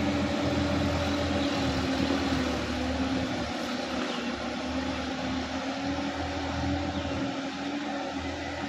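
Sonalika DI-50 RX tractor's diesel engine running steadily as the tractor works through a flooded paddy field, slowly fading as it moves away.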